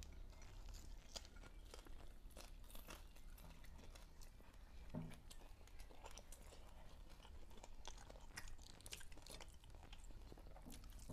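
Faint chewing of fried fish and rice, with scattered wet mouth clicks and light crunches, over a low steady hum.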